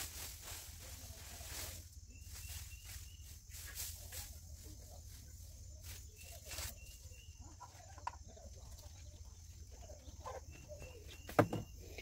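Quiet farmyard sounds: scattered rustling and light steps, with a short high chirp repeated in a few small groups and a single knock near the end.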